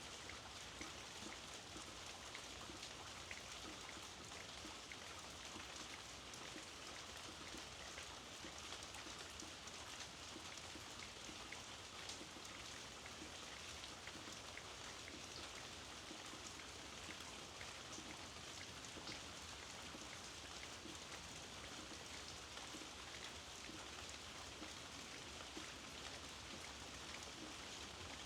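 Steady rainfall with many small droplet ticks, fairly quiet and even throughout.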